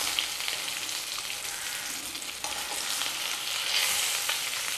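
Mackerel sizzling steadily in still-hot coconut oil in a shallow pan after the burner has been switched off, with a few light clicks of metal tongs as the fish is turned over.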